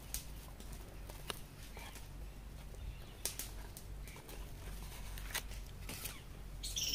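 Faint, scattered small clicks and taps over a low steady hum, with a brief high chirp starting right at the end.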